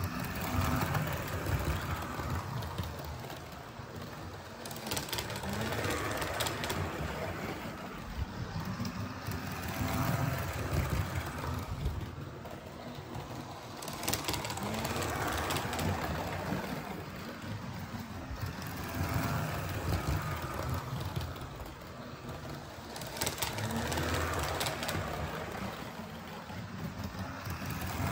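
Model HST trains running on the layout's track: a small motor's hum with wheels clicking over the rail joints. It swells and fades about every four to five seconds as the trains come past.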